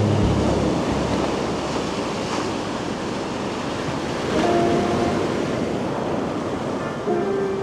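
Steady rushing of sea surf, with a brief pitched hum about four and a half seconds in and another starting near the end.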